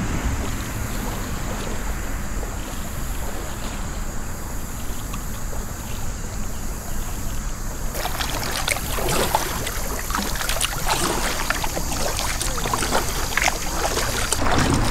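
Kayak being launched and paddled: a steady low rumble for the first half, then irregular paddle splashes and water dripping from about eight seconds in.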